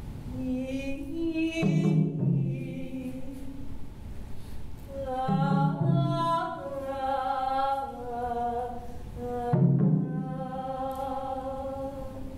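Performers' voices singing wordless held tones, several pitches at once, in three long phrases. Each phrase opens with a loud low note or thump.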